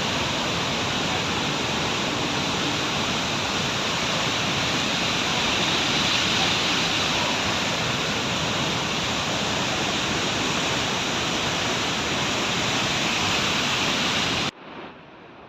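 Loud, steady rush of a waterfall's falling water, which cuts off abruptly near the end.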